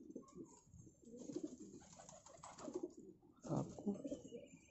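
Domestic pigeons cooing quietly, a series of soft low coos with a louder one about three and a half seconds in.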